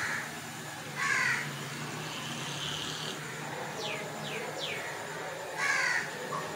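Crows cawing: harsh caws right at the start, about a second in and again near the end. Between them three quick falling whistles, over the steady sizzle of potato fries deep-frying in a wok of hot oil.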